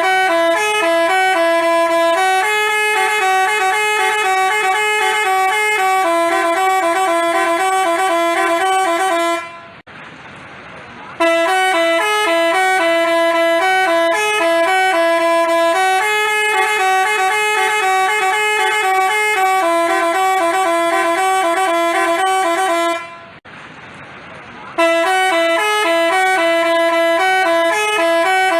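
Telolet bus horn, a Basuri multi-tone horn, playing a tune of short stepped notes. It breaks off twice for a second or two, about 10 and 23 seconds in.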